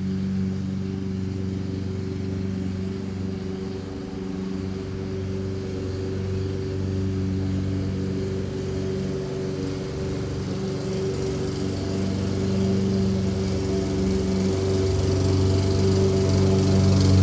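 Toro Personal Pace Recycler walk-behind mower with a 163cc Briggs & Stratton engine, running steadily while cutting grass, growing louder as the mower comes closer.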